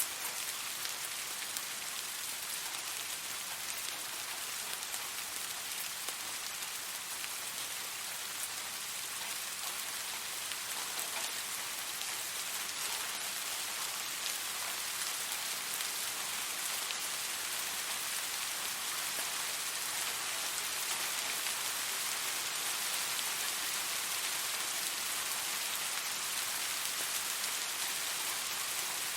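Steady rain falling on a surface: an even hiss of many small drops, with fine pattering ticks and no thunder.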